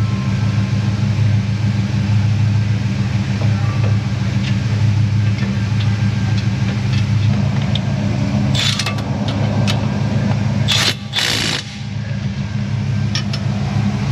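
A steady low mechanical drone, as of an engine or motor running, with three short, loud hisses about two-thirds of the way through.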